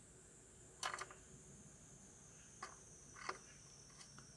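Great tit's bill clicking against peanuts in a metal window track: a sharp click about a second in, then three lighter ones in the second half. Under it, a steady high-pitched insect buzz.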